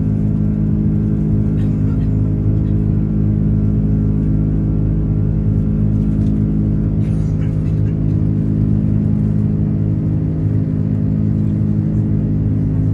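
Steady drone of jet engines and airflow heard inside the cabin of an Airbus A330 airliner, holding several low steady tones at an even level, with a few faint clicks.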